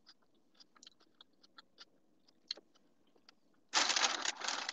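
Faint mouth clicks of quiet chewing, then near the end about a second of loud rustling as a paper takeout bag on the car seat is handled.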